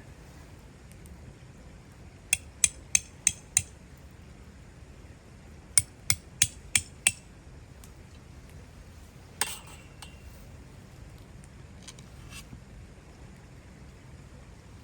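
Hammer blows: two quick runs of five sharp strikes, about three a second, then a single strike with a brief metallic ring.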